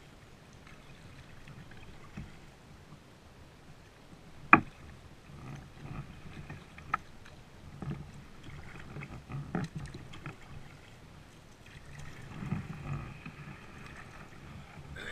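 Kayak paddling: irregular paddle strokes swishing and dripping in the water, with a sharp knock about four and a half seconds in and a smaller click near seven seconds.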